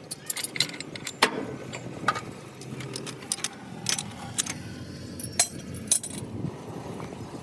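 Irregular metallic clinks and taps, as of hand tools and engine parts being handled, over a steady low background hum.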